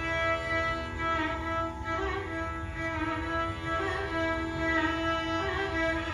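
Carnatic violin playing a slow melodic passage of gliding, ornamented notes over a steady drone.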